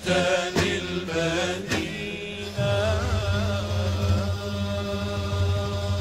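Islamic nasheed sung by a male ensemble, with sharp hand-drum strokes that stop about two seconds in. After that a low sustained drone holds, and a solo male voice sings a long ornamented, wavering line over it.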